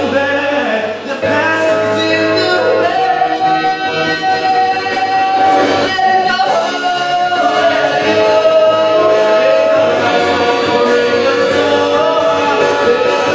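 A man singing, holding long notes.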